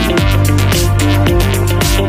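Background electronic music with heavy bass and a fast drum-and-bass beat.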